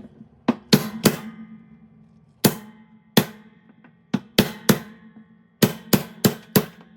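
Hammer striking a large steel socket set on a top-load washer's centre hub, about a dozen sharp metallic blows in uneven groups, each leaving a low metallic ring. The blows drive the socket down to loosen the tub from the transmission shaft.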